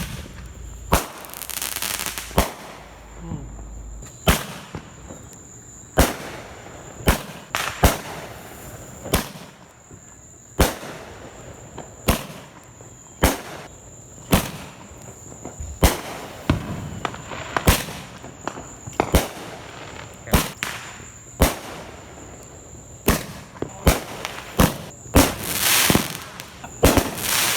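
Fireworks going off: a long run of sharp bangs at irregular intervals, sometimes two close together, with spells of hissing crackle near the start and again near the end.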